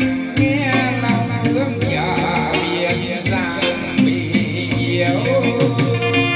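A song with a singing voice over bass and a quick, regular shaker-like beat, played back through the JBL speakers under test.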